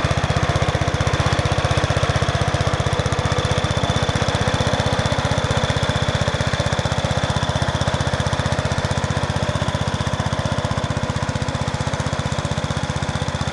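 Sears Suburban 12 garden tractor's Briggs & Stratton engine running steadily under load, pulling three chained spruce logs, fading slightly near the end as it moves away.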